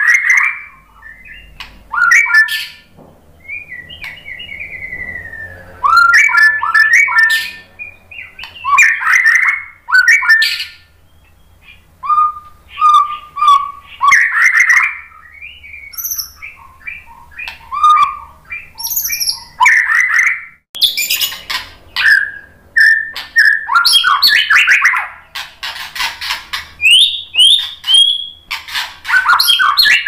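White-rumped shama (murai batu) singing loudly in short, varied phrases of whistles, trills and chirps with brief pauses between them; the phrases come faster and closer together in the second half.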